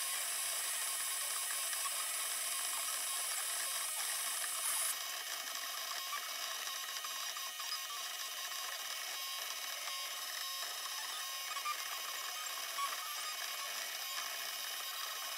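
Desktop diode laser engraver running as it burns a design, a steady whir from its gantry motors and cooling fan. A high hiss stops suddenly about five seconds in.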